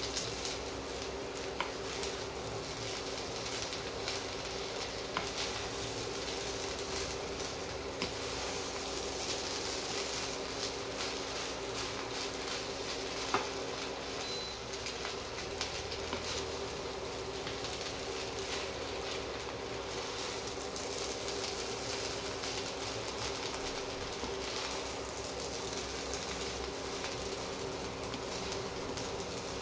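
Fried rice sizzling in a pan while it is stirred and turned with a wooden spatula, a steady frying hiss with a few sharp knocks of the spatula against the pan.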